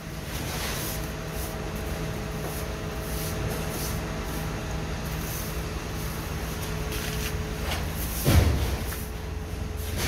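An engine running steadily with a low, even hum. A single thump comes about eight seconds in.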